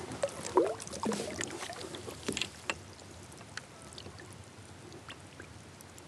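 Lake water splashing and sloshing at a kayak's side as a large northern pike is released by hand. Most of the splashes come in the first three seconds, followed by scattered drips and small splashes.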